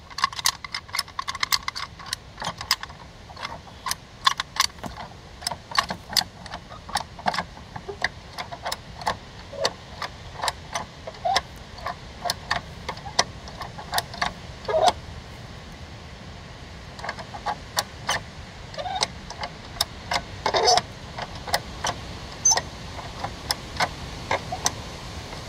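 Handyman (high-lift) farm jack being pumped by hand to lift an ATV. Its steel climbing pins give a run of sharp metal clicks and clanks on the notched bar, a couple a second, with a short pause about halfway through.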